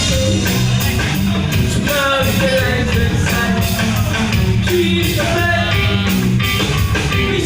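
Band music with a singer over a steady, even beat.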